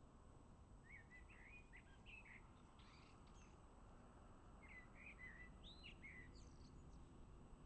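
A songbird singing faintly: two short phrases of quick chirping, gliding notes, the first about a second in and the second about five seconds in, over low background noise.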